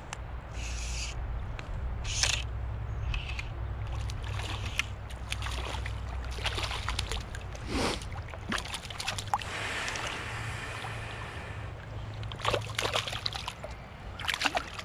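Irregular splashes and sloshing of shallow river water, with a steady low rumble underneath.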